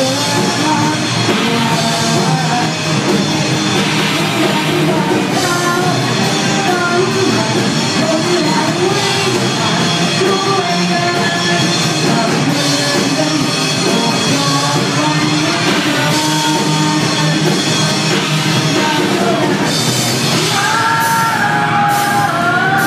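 Live rock band playing: a lead singer over electric guitars and a drum kit, loud and continuous.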